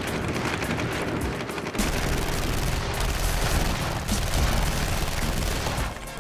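Film sound-effects gunfire: a dense fusillade of rapid handgun shots overlapping one another. A deep low rumble joins about two seconds in.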